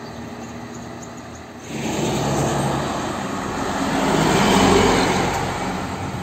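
Quieter distant road traffic, then about two seconds in a medium-size bus passes close by: its engine and tyres swell to a peak and fade as it drives away.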